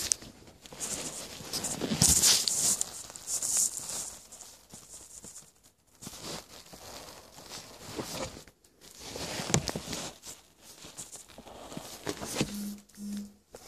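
Irregular rustling and scuffing of someone moving about and handling the phone at close range, with two short low tones near the end.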